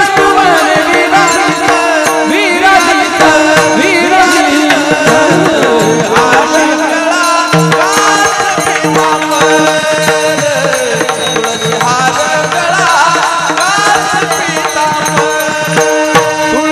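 Marathi Varkari devotional bhajan: a male singer's wavering, ornamented melody over steady held accompanying tones, with a hand drum and rattling percussion keeping the beat.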